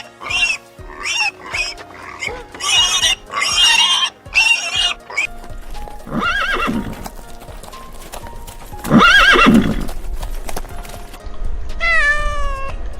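Farm-animal calls over background music: a quick series of short high calls for the first five seconds or so, two longer calls about six and nine seconds in, and a falling call near the end.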